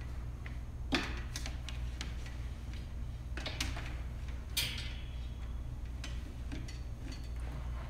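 A few scattered light clicks and knocks, as of someone moving about and handling things, over a steady low hum.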